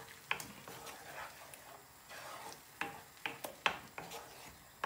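Wooden spatula stirring and scraping a thick onion-and-tomato masala around a non-stick frying pan, with a few sharp knocks of the spatula against the pan, over a soft sizzle of the masala frying.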